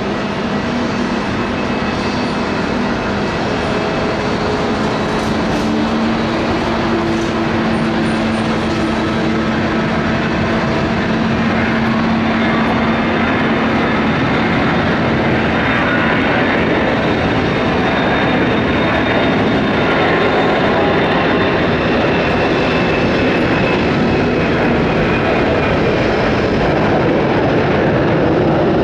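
Boeing KC-135R Stratotanker's four CFM F108 turbofan engines at take-off power, a steady jet roar that slowly grows louder.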